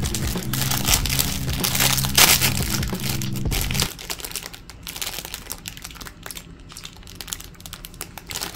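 Clear plastic snack-cake wrapper crinkling as it is handled and crumpled, dense for the first four seconds and then in softer, scattered crinkles. A low hum runs underneath and stops suddenly about four seconds in.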